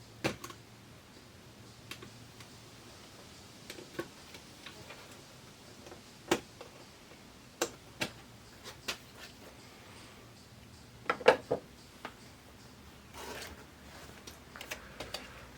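Scattered clicks, taps and knocks of hand tools and plastic parts being handled while an LCD TV's back is taken apart. The loudest is a quick run of three knocks about 11 seconds in, followed by a short rustle.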